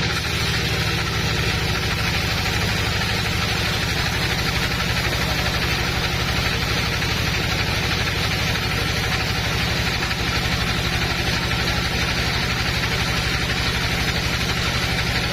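Woodworking machinery running steadily: a constant low, fast-pulsing hum under an even hiss.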